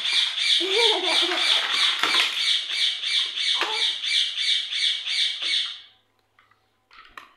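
Loud, rapid high-pitched chirping repeated evenly at about four chirps a second, stopping abruptly about six seconds in, with a toddler's short vocal sound about a second in.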